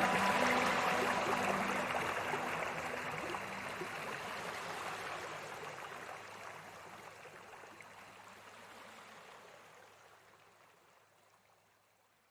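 Steady rush of flowing river water, fading gradually to silence near the end. The last sustained notes of soft music die away in the first few seconds.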